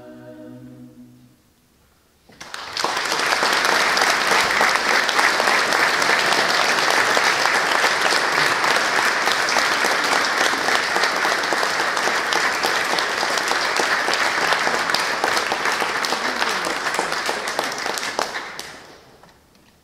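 A choir's last held chord dies away, and after a short pause the audience claps for about sixteen seconds before the applause tapers off.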